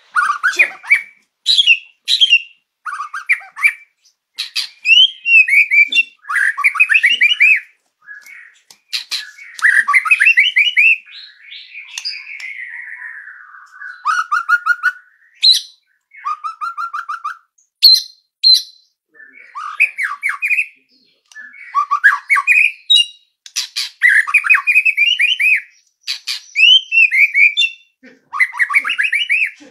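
White-rumped shama (murai batu) singing: a loud run of short, varied phrases of whistles, quick trills and sharp chattering notes, broken by brief pauses, with one longer falling whistle near the middle.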